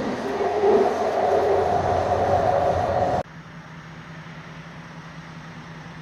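A train running loudly, with a steady chord of held tones over the rumble for about three seconds. It cuts off suddenly to a quieter steady hum.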